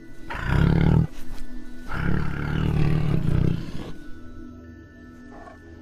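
A tiger roaring twice, a short roar and then a longer one, over soft background music.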